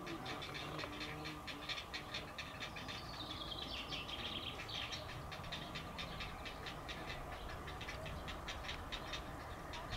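Grey heron chicks in the nest begging with a rapid clattering chatter of ticks, about five or six a second. About three seconds in comes one longer call that falls in pitch.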